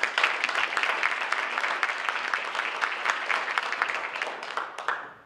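Audience applauding. The clapping starts suddenly and dies away over the last second.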